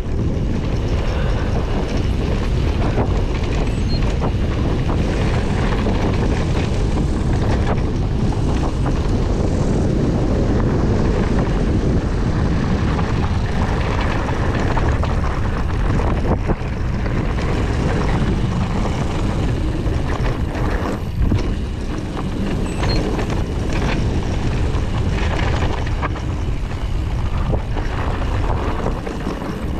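Wind buffeting the microphone and tyres rumbling on a dirt trail during a mountain-bike descent, with frequent knocks and rattles from the bike over bumps.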